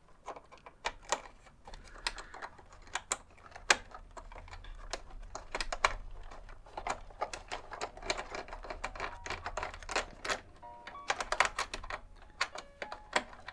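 Irregular small clicks and taps of a screwdriver turning out a screw and of hard plastic radio casing parts being handled.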